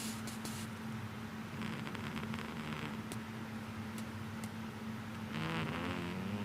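A sleeping cat snoring: raspy breaths about a second long, one at the start and one around two seconds in, then a louder, pitched, wavering snore near the end. A steady low hum runs underneath.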